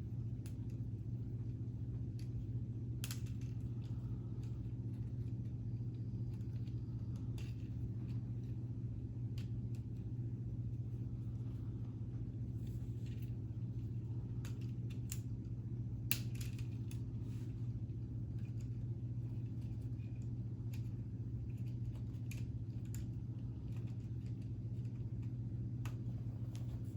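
Light clicks and clacks of K'nex plastic pieces being handled, scattered irregularly, with a sharper click about 3 s in and another about 16 s in. Under them a steady low hum.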